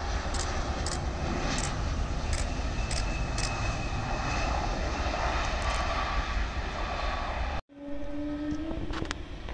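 Distant airliner's engines running on the airport runway, a steady rushing rumble with heavy low end. The sound drops out abruptly for a moment near the end, then returns with a faint rising whine.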